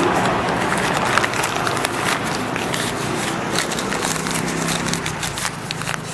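Sheet of paper crinkling and crackling as it is crumpled by hand around a lime, in many irregular small crackles.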